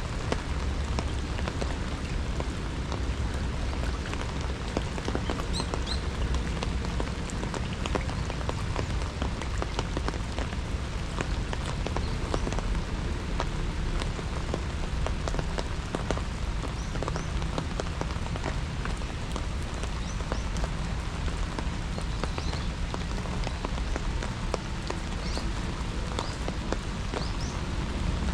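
Steady rain falling, with many close, distinct drop taps over a low rumble.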